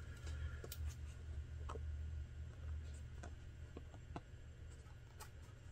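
Faint handling of a leather piece being folded and held for hand-stitching: scattered light ticks and rustles over a steady low hum.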